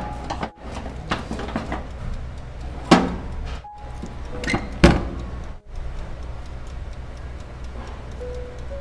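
Background music over the clatter of a wire rack being slid into a Kirin electric oven and the oven's glass door shutting, with two loud knocks about three and five seconds in. Near the end, the oven's control knob clicks as it is turned.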